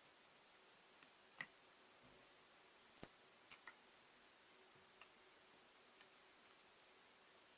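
A few separate sharp little clicks and taps, the loudest about three seconds in, over near silence: laptop parts and tools being handled during disassembly.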